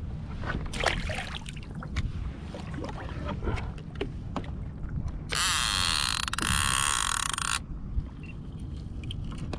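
Wind and water noise around a kayak on open water, with scattered knocks and clicks. About five seconds in comes a loud mechanical whirring buzz that lasts about two seconds and then cuts off.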